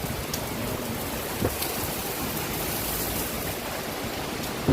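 Heavy rain driven by strong wind, a steady rushing hiss with a few faint ticks.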